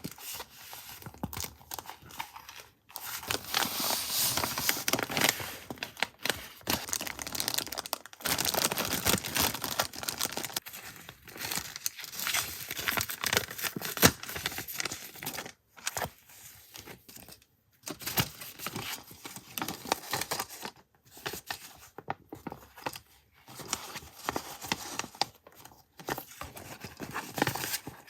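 Paper crinkling and rustling as it is handled, in uneven stretches with short pauses and small clicks and taps.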